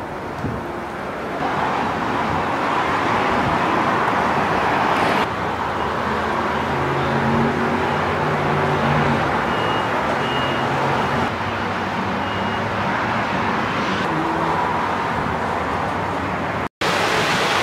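Steady highway traffic noise, with the hum of passing car engines. The sound changes abruptly a few times and drops out for an instant near the end.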